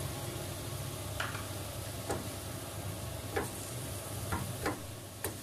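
Ground beef and onions sizzling in a nonstick frying pan while a wooden spatula breaks up the meat, knocking against the pan about six times.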